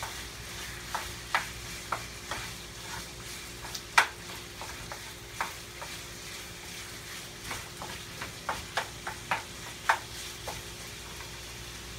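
Diced chicken sizzling as it browns in a skillet over medium-high heat, while a wooden spoon stirs it and knocks against the pan in scattered clicks, the loudest about four seconds in.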